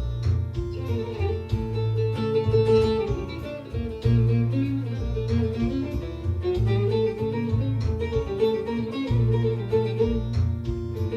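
Bağlama playing a quick run of plucked notes in the Hicaz makam, improvised, over low sustained bass notes that change every second or so.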